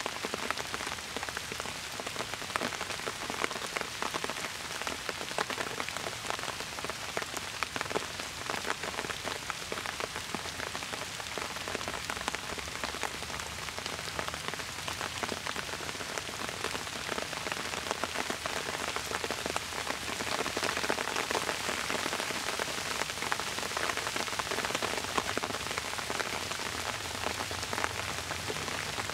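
Steady rain falling, with many separate drops hitting close by; it grows a little heavier about two-thirds of the way through.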